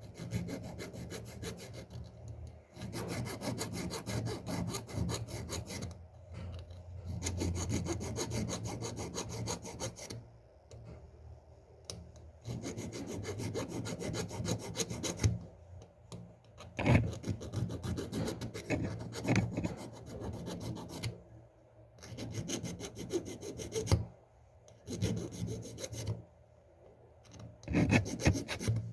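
Sandpaper rubbed rapidly back and forth over a worn gear wheel of an antique Veglia alarm clock, taking off burrs. The scraping comes in runs of a few seconds with short pauses between them.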